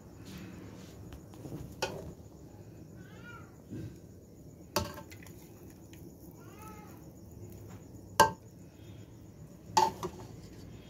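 A metal serving spoon knocks against a plate and pot four times as cooked rice is dished out; the sharpest knock comes a little after 8 seconds in. Two short cries that rise and then fall, a few seconds apart, are heard faintly in between.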